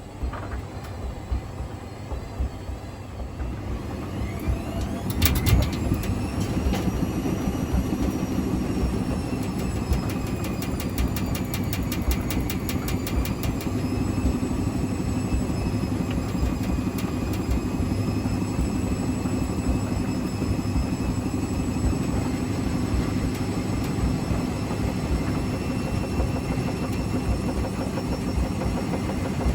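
Hotpoint Extra WMXTF942 washing machine's drum speeding up into a rinse spin with a rising motor whine and a few heavy knocks about five seconds in. It then spins steadily with a loud rumble and rapid clatter from an unbalanced load.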